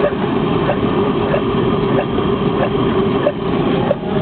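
Home-built Stirling-cycle hot air engine running slowly, at about 50 revolutions a minute, with a light regular clack about every two-thirds of a second over a steady, loud, engine-like rumble.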